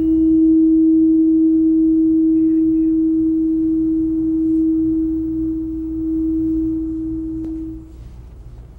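A tuning fork tuned to E, sounding one steady pure tone. The tone holds for about eight seconds with a slight swell and ease in loudness, then stops near the end.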